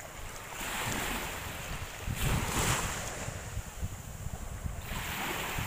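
Sea waves washing onto a beach, the surf rising in surges with the biggest wave breaking about two seconds in and another near the end. Wind buffets the microphone.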